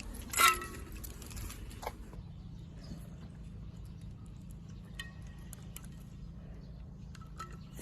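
Shiba Inu drinking ice water from a bowl: scattered light lapping and tapping, with ice cubes clinking. One sharp ringing clink about half a second in is the loudest sound, and a few fainter clinks come later.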